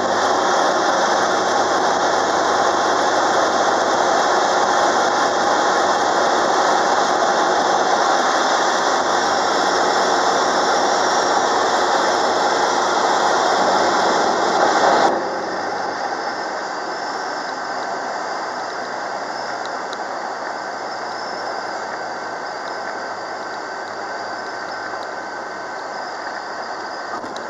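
Cockpit noise of a Cirrus SR22 single-engine plane: the six-cylinder piston engine and propeller running steadily under rushing air. About halfway through the noise drops suddenly to a lower, steady level, as the plane rolls out on the runway after landing.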